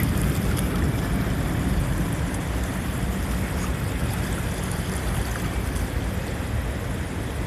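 Floodwater of the swollen Newaukum River rushing and spilling over a cement divider, a steady rush of water with a low rumble.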